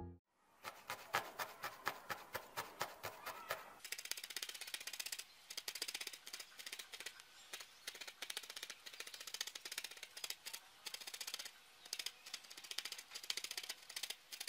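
Felting needle in a wooden handle stabbing red wool into a felted portrait, a run of faint, quick ticks. They come about four a second at first, then faster and closer together from about four seconds in.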